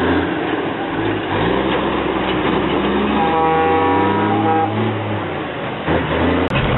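Diesel semi-truck engine running as the truck hauls a tanker trailer through a river ford, with the truck's air horn sounding once for about a second and a half, roughly three seconds in.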